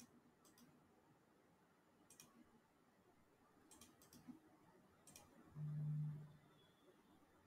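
Near silence with a handful of faint computer mouse clicks at irregular intervals, and a short low hum lasting under a second about five and a half seconds in.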